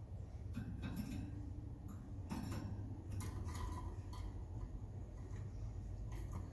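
Irregular small clicks and ticks, a few a second at most, from hand-feeding a young Timbrado canary, with a brief faint peep a little past the middle, over a steady low hum.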